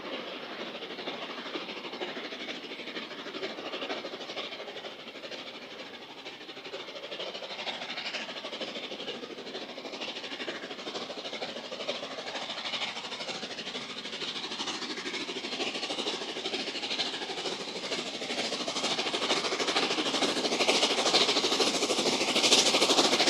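Steam train running on the rails, a dense steady mechanical noise that grows louder toward the end as it draws nearer.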